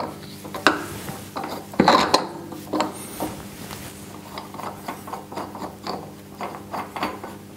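Steel ISO 40 taper tool holder with a face mill being fitted by hand into a milling machine spindle: metal clinks and scrapes as its notches are turned onto the spindle's drive dogs, the loudest knocks about two seconds in, then a run of light ticks. A steady low hum runs underneath.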